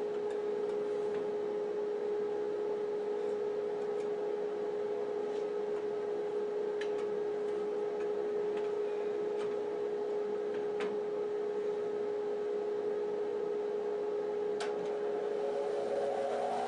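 Rikon bandsaw running with no load: a steady hum with a few faint ticks. Near the end the blade starts into a block of wood and a higher tone rises over the hum.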